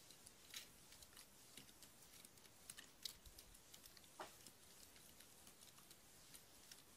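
Near silence, with faint, scattered light ticks and clicks.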